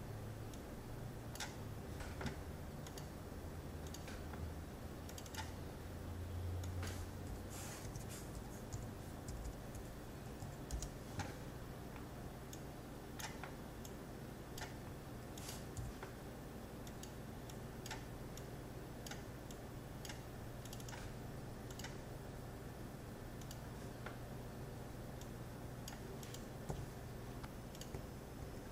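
Faint, irregular clicks of a computer keyboard and mouse, spaced a second or more apart, over a low steady hum.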